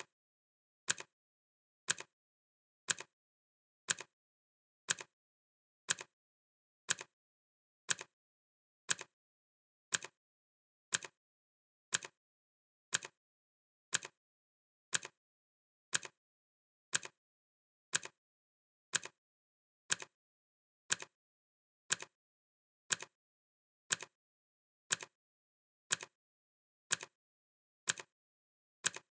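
Clock-ticking sound effect: one sharp tick every second, evenly spaced, with silence between the ticks.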